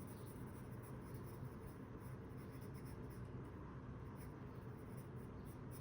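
Pencil scratching on sketchbook paper in quiet, irregular strokes as a face is being sketched.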